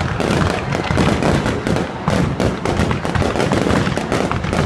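Fireworks display going off: a dense, continuous run of bangs and crackles with no pause.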